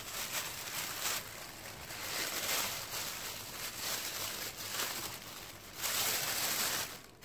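Tissue wrapping paper rustling and crinkling as it is unfolded and pulled open by hand, in uneven stretches, loudest about six seconds in.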